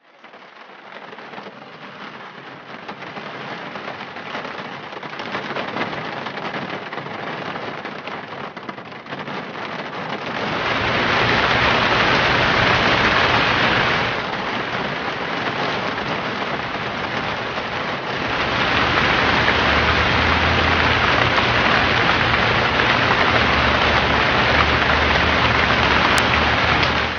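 Heavy rain pouring onto a flooded driveway, an even hiss that grows much louder about ten seconds in, eases for a few seconds, then comes back heavy. A low rumble runs under the heaviest stretches.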